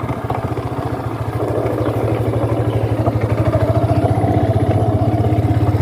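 Motorcycle engine running steadily while riding, with a fast, even low pulse that grows slowly louder.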